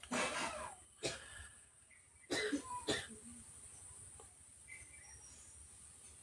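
A person coughing: a pair of coughs at the start and another pair about two and a half seconds in.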